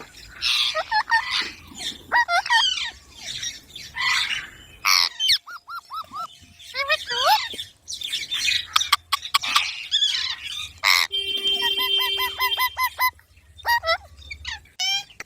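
Young green parrot chirping and squawking in short, rapid, rising and falling calls, over and over. About eleven seconds in there is a sharp click, then a fast even run of repeated notes over a steady tone for about two seconds.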